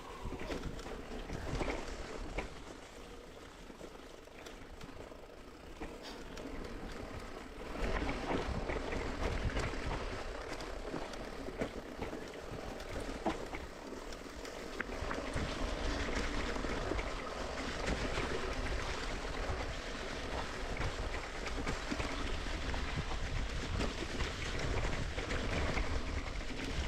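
Mountain bike riding a dirt singletrack: tyre noise, small rattles from the bike and wind on the microphone, getting louder about a third of the way in.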